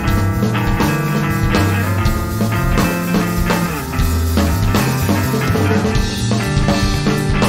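Metalcore band recording: electric guitars, bass and drum kit playing a dense, driving passage.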